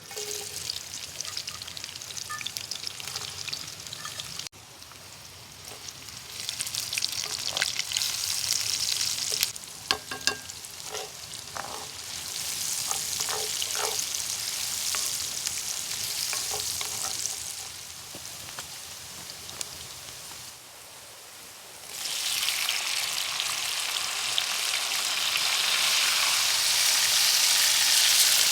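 Food sizzling and frying in a pan over an open wood fire, a loud steady hiss with short pops. The sizzle jumps louder or softer several times as shots change.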